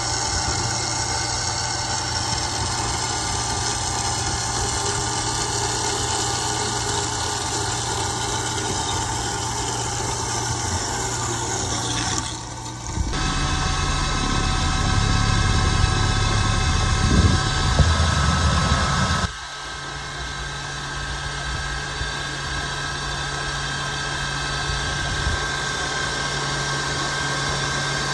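Steady machine-tool noise from metal machining of titanium bar stock. First a machine cuts the round bar with a constant whine. After an abrupt change about 12 seconds in, a metal lathe turns the bar with a carbide insert, and its tone shifts abruptly again about 19 seconds in.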